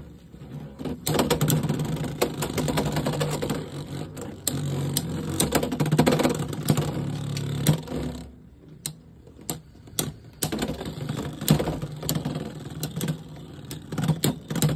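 Beyblade X battle: Helm Knight and Scythe Incendio spinning in a plastic stadium, with a steady whir and rapid clicking clashes as the tops hit each other. After about eight seconds the clashes thin out to occasional clicks as both tops slow in a stamina battle.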